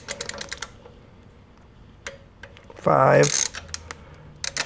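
Ratchet of a torque wrench clicking in quick runs as it tightens the nuts of a Lambretta gearbox endplate, with a short, louder squeak about three seconds in.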